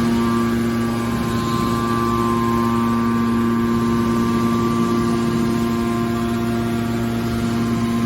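Industrial machinery running steadily: a constant mechanical hum with several held tones, unchanging throughout.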